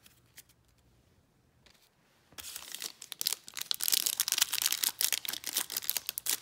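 Foil wrapper of a trading card pack crinkling and tearing open by hand. A few faint clicks come first, then a dense crackle starts about two seconds in and goes on.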